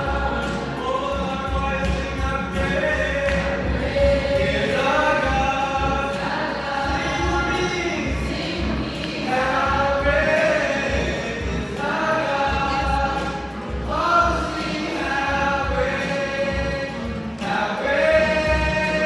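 Choir singing: several voices in sustained, rising sung phrases with held notes.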